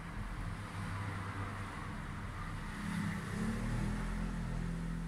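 Low steady engine hum, swelling a little about three seconds in.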